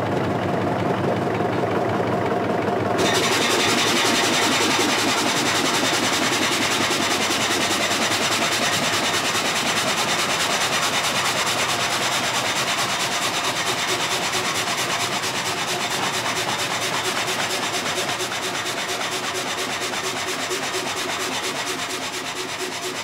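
Water-powered frame saw running and cutting a log, a whining, chewing, stamping sound of rasping blade strokes in a steady rhythm over the mill's running machinery. The high-pitched rasping of the cut comes in abruptly about three seconds in.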